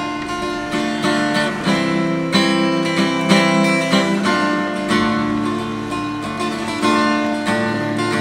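Yamaha acoustic guitar played solo, chords ringing in a steady rhythm over a held low bass note: the instrumental introduction of the song, before the vocals begin.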